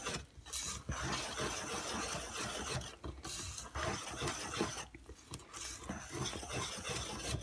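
Wire whisk scraping and swishing round a stainless steel bowl as flour and yogurt are worked into thick chocolate batter, steady with a few short pauses.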